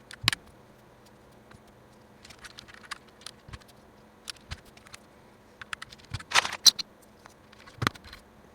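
Plastic keycaps being pressed onto Gateron KS-9 mechanical key switches: scattered small clicks and clacks, with louder clacks near the start and a cluster about six to eight seconds in.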